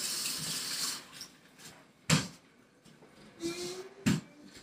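Kitchen sink tap running, shut off about a second in, followed by two sharp knocks about two seconds apart from dishes or cupboard handled at the sink.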